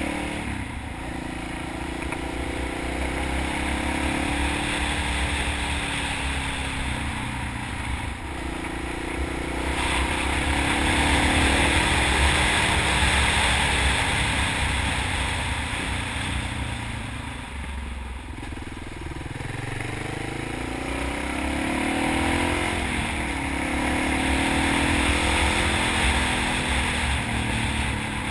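Honda XR650 supermoto's single-cylinder four-stroke engine under way, its revs rising and falling repeatedly. Wind rushes over the microphone throughout, swelling louder twice as speed builds.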